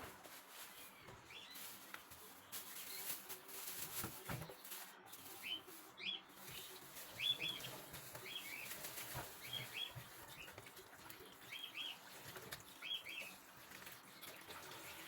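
Small birds chirping faintly in short, paired notes that repeat from about five seconds in, over low background hiss with a few soft clicks.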